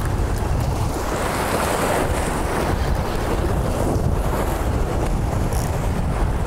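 Wind buffeting the microphone with a steady low rumble, over the continuous wash of waves breaking against jetty rocks.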